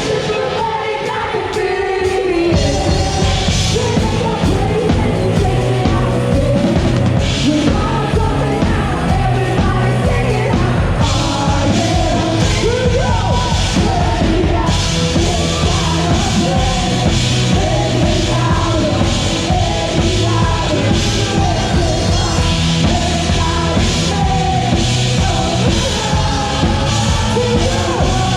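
Loud rock-style worship music with singing over a full band and drum kit. The drums and bass drop out for about the first two seconds, then the full beat comes back in.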